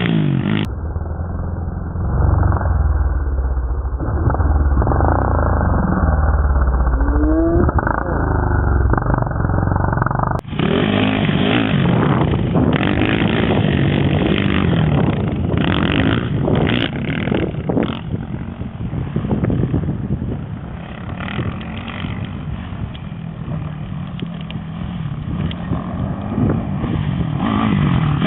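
Single-cylinder four-stroke 450cc sport quad running hard on a dirt motocross track, its engine revving up and dropping off through jumps and corners, with a clear rising rev about a quarter of the way through.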